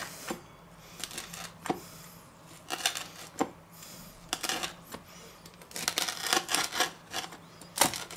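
Knife cutting through a baked pizza crust on a wooden board: scattered crackling clicks, turning denser over the last couple of seconds.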